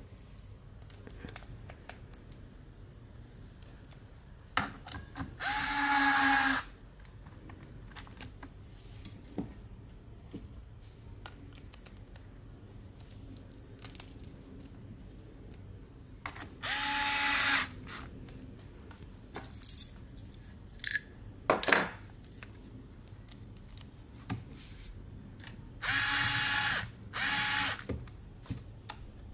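Small cordless electric screwdriver whirring in four short bursts of about a second each, running screws in the head unit's sheet-metal chassis. Sharp clicks of metal parts being handled in between.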